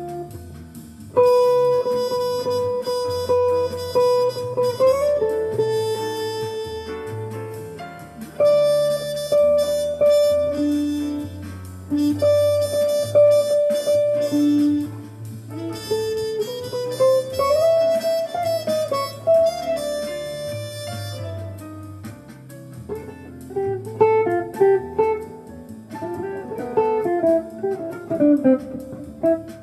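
Jazz playing: a lead instrument holds long notes, some sliding in pitch, over plucked guitar and a walking low bass line. Past the middle, the lead turns to quicker, shorter phrases.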